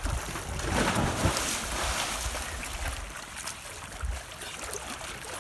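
Lake water splashing as a person swims, with wind rumbling on the microphone.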